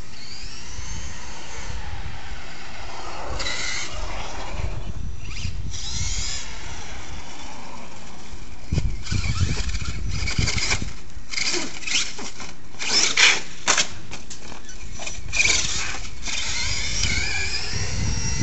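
Brushless electric motor of a Traxxas Revo 3.3 monster truck converted with a Tekno E-conversion kit and a Castle Mamba Monster 2200kv system, whining up and down in pitch as the truck accelerates and slows. In the middle come a run of short knocks and louder bursts as it drives over the curb and grass.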